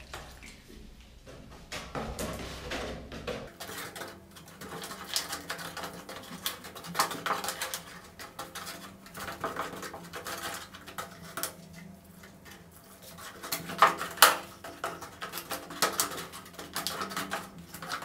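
Small trowel stirring and scraping gypsum plaster mixed with water in a cut-off plastic bottle, with irregular clicks and scrapes of the blade against the sides. Two sharper knocks come about three-quarters of the way through.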